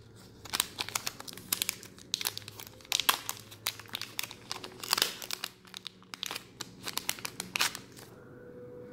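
Plastic packaging crinkling and rustling as it is handled and opened, in quick irregular crackles that stop about eight seconds in.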